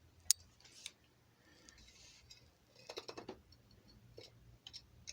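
A sharp click about a third of a second in, then faint scattered clicks and rattles of small metal parts and tools being handled on a workbench.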